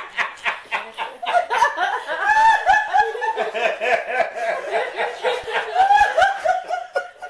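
A group of people laughing at a joke's punchline, several voices of chuckles and laughs overlapping. It swells about a second in and dies away near the end.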